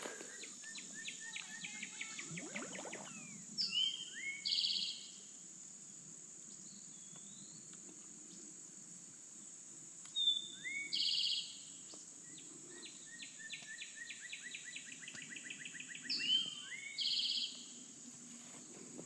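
A songbird sings the same short phrase three times, about six seconds apart: a few sliding notes followed by a buzzy trill. Under it runs a steady high insect drone, with rapid runs of ticking notes in between the songs.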